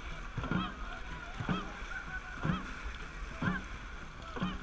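Dragon boat crew paddling in unison at about one stroke a second, each stroke marked by a short shout, over the splash and rush of water along the hull and wind.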